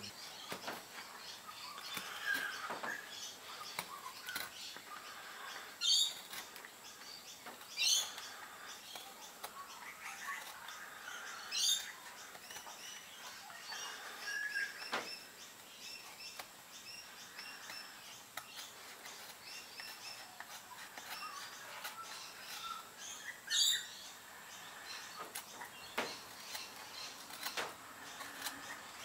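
Utility knife shaving chamfers off a small wooden lure blank: quiet scraping cuts, a few of them louder and sharper. Birds chirp faintly in the background.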